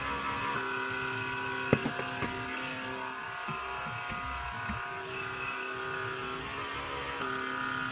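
Electric pore vacuum's small motor humming steadily, its pitch shifting a few times as the suction nozzle is handled. A few sharp clicks about two seconds in and some soft knocks from handling the device.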